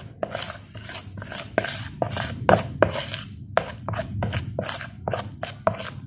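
A spoon scraping and knocking against a plastic bowl while stirring glutinous rice flour and water into a dough, in quick, uneven strokes about two or three a second.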